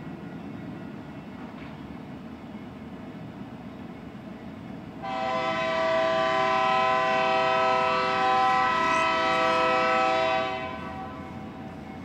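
Diesel locomotive air horn sounding one long blast, a chord of several pitches held steady, starting abruptly about five seconds in and fading out about five and a half seconds later, over a steady low rumble.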